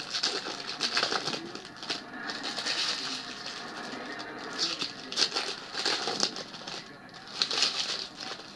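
Foil trading card pack wrappers crinkling and tearing as they are opened and handled, in irregular crackling bursts.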